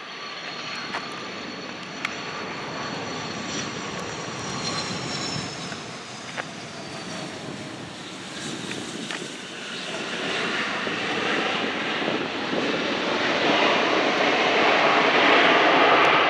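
Airplane engine noise as an aircraft passes: a high whine that slides down in pitch over the first several seconds, then a broad engine rumble that grows steadily louder toward the end.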